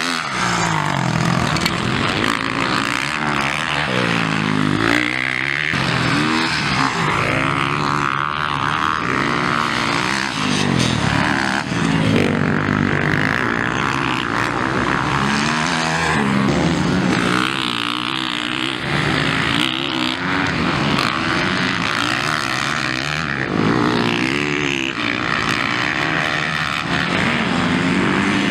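Motocross bike engines revving up and down through a corner, pitch rising and falling again and again as bikes accelerate, shift and pass.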